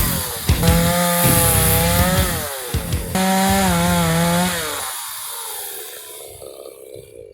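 Chainsaw cutting resin-rich Austrian pine branches. Its engine pitch sags as the chain bogs in the cut and picks up again several times. It then fades away over the last couple of seconds.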